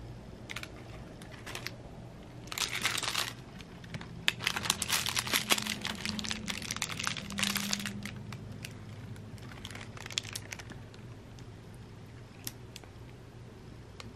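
Tinsel and curled-ribbon strands of a cat wand toy crinkling in bursts as the toy is poked at a cat and the cat bites it. The loudest, busiest crinkling comes about four to eight seconds in, with a shorter burst near ten seconds.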